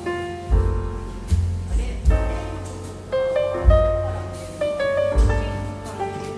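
Background piano music: a gentle melody of sustained, decaying notes over low bass notes.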